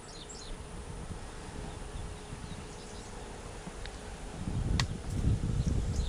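Steady buzzing of insects, with one sharp click about five seconds in and a low rumble near the end.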